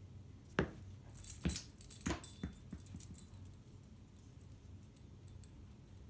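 A small dog's collar tags jingling as it dashes after a thrown mini tennis ball, with several sharp thumps in the first three seconds.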